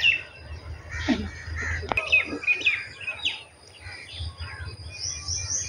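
Small birds chirping, with a run of short, quick, rising and falling calls about two to three seconds in.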